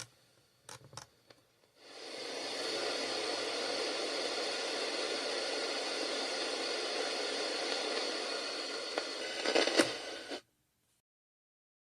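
Retro 1980s clock radio giving a steady hiss of static between stations, with a few crackles near the end. It cuts off suddenly about ten seconds in.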